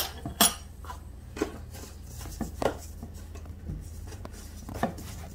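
Scattered light knocks and clinks of kitchen utensils being handled against a steel mixing bowl and a wooden cutting board, about half a dozen at uneven intervals, over a low steady hum.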